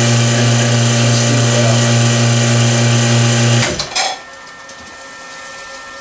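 Vacuum pump of a lathe vacuum-chuck system running with a steady loud hum, switched off a little past halfway, dying away within about half a second to a faint steady background.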